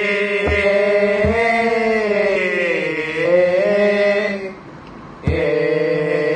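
Chorus of male voices in a Thai royal barge chant (he ruea) holding the long drawn-out 'heh' refrain, its pitch wavering and dipping about three seconds in. The chorus breaks off for a moment and starts again, and low knocks keep time twice in the first second and a half.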